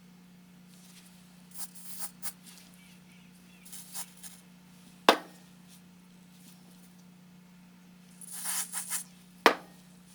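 Hands working on motorcycle parts with tools: scattered scrapes and rattles, with two sharp knocks, one about halfway through and one near the end, over a steady low hum.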